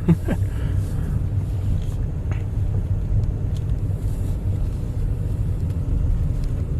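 A car running with a steady low rumble, with a brief squeak just at the start and a few faint ticks.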